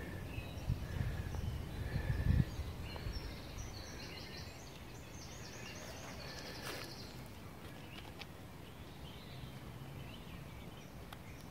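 Small birds singing in the valley woods: short repeated chirps, then fast high trills a few seconds in. Low thumps and rumble in the first couple of seconds, over a steady outdoor hush.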